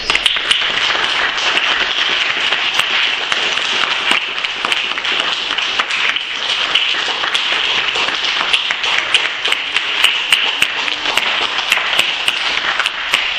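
An audience of children applauding, with dense, steady clapping throughout.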